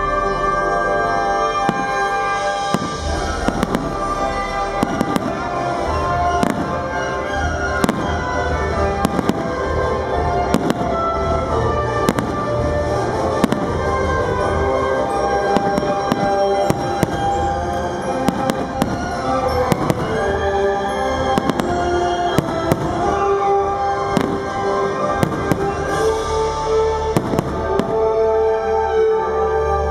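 Aerial firework shells bursting in rapid, irregular succession throughout, over music with held tones.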